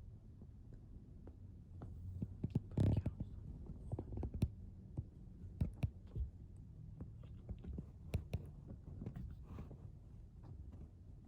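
Two Siberian kittens playing and tussling: scattered soft thumps, taps and scratches of paws and bodies, with a louder bump about three seconds in.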